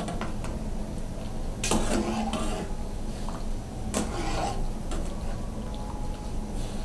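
Metal clinks and scrapes of a perforated strainer ladle against the pot as blanched sea hare (small cuttlefish) is scooped out of boiling water and drained. There are sharper clanks about 1.7 to 2 seconds in and again about 4 seconds in.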